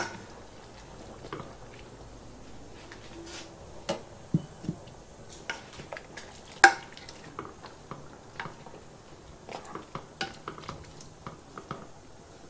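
Scattered clinks and knocks of a utensil against a metal cooking pot as potatoes go in, with one sharper clink about six and a half seconds in.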